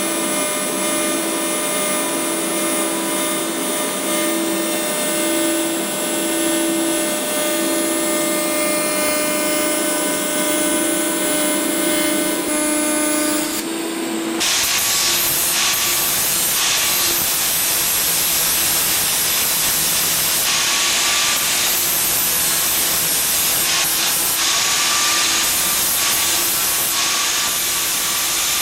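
Handheld electric power tool running with a steady whine. About halfway through, a loud, dense hissing rasp takes over as the abrasive works against metal.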